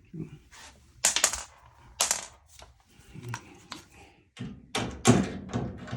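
Irregular sharp knocks and clacks of a Samsung dryer's cabinet panels being handled and worked loose by hand, in a few separate groups, the loudest about five seconds in.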